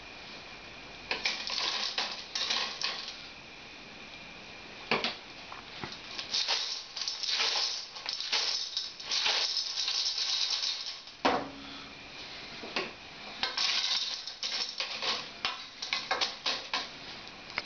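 Winkles' shells rattling and clicking against a stainless-steel pot as they are stirred on the stove with a wooden spatula. The clatter comes in irregular runs with short pauses.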